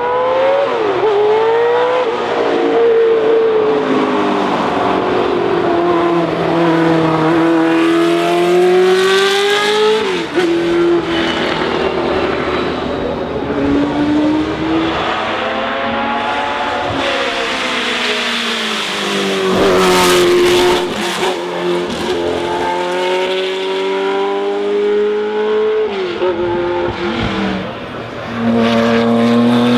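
Racing car engines at full throttle, the pitch climbing in long sweeps and dropping sharply at each gear change, again and again. Near the end a fresh, louder engine comes in.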